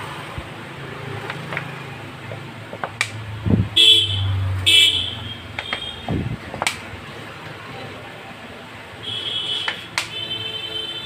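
Vehicle horns honking: two short toots about four seconds in and a longer honk from about nine seconds to the end. Scattered sharp knocks and clinks of metal engine parts being handled come in between.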